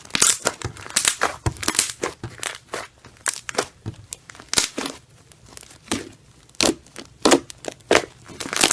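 Slime being squished and pulled by hand, making irregular sharp crackles and pops, a few a second.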